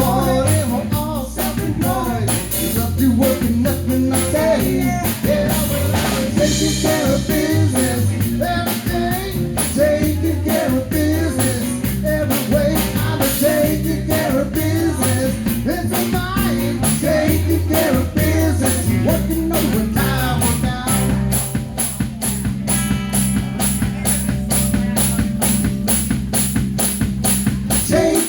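A live rock band playing: a drum kit keeps a steady beat under bass and a wandering melodic lead line. In the last third a sustained note holds under regular quick hi-hat ticks.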